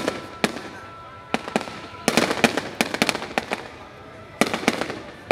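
Fireworks going off in quick volleys of sharp bangs and crackles, with a dense cluster about two seconds in and another near the end.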